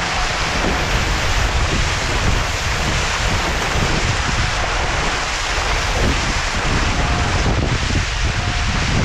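Steady wind buffeting a boat-mounted camera's microphone, over the rushing hiss of spray and water along the hull of an International 14 skiff sailing fast in over 20 knots of wind.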